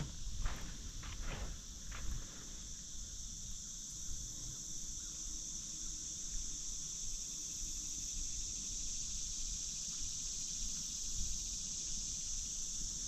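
Steady, unbroken chorus of insects shrilling high in pitch, with a few faint clicks in the first two seconds.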